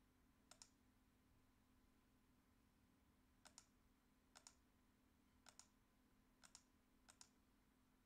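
Computer mouse button clicked six times, each click a quick press-and-release double tick: one click, then after about three seconds five more, roughly a second apart.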